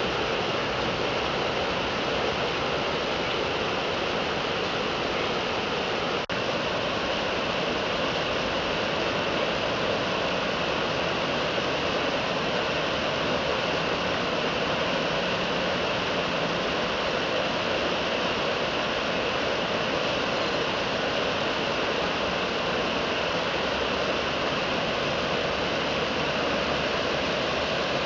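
Floodwater rushing over a road and through a guardrail, a steady, unbroken rush of moving water. The sound drops out for an instant about six seconds in.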